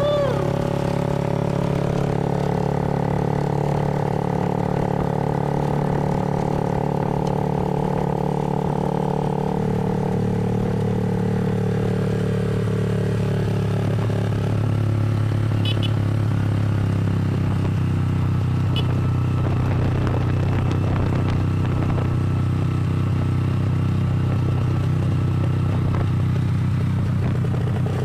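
Motorcycle engine of a tricycle (motorcycle with sidecar) running steadily while under way, its engine note changing about ten seconds in and again around seventeen seconds.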